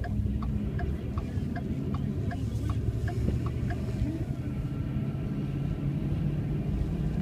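A car's engine and tyres running as heard inside the cabin, a steady low rumble. A light, even ticking about two to three times a second runs over it and stops about four seconds in.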